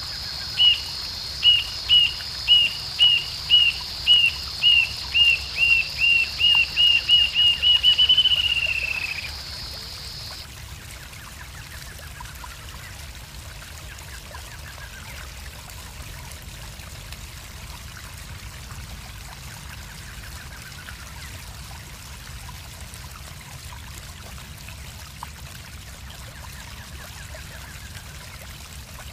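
Rufous-tailed jacamar singing: a long run of high, thin whistled notes that speed up and close in a falling trill about nine seconds in, over a steady high hiss. After that only a softer steady rushing background remains, with faint distant bird calls.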